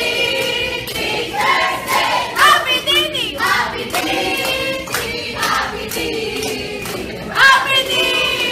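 A group of teenage students singing and shouting together, with hand clapping mixed in.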